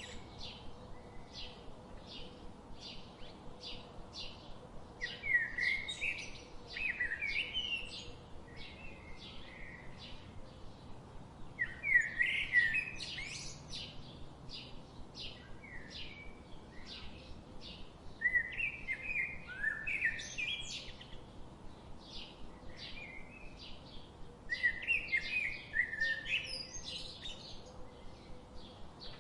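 Songbirds: one bird repeats a short chirp about twice a second throughout, while another sings a warbling phrase of two to three seconds about every six seconds, four times in all.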